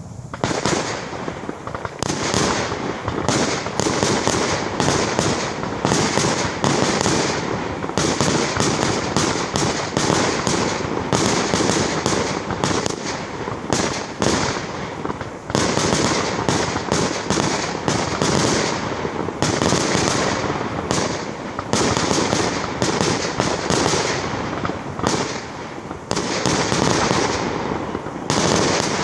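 Aerial fireworks display: a dense, continuous barrage of sharp bangs, several a second.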